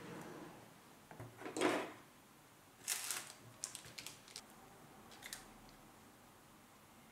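A soft knock, then a quick run of small sharp clicks and taps: watch parts and tools being handled on a workbench.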